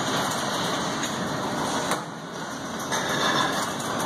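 Parking-garage barrier gate and its motor-driven gear running steadily as the system cycles, with the barrier arm swinging down near the end.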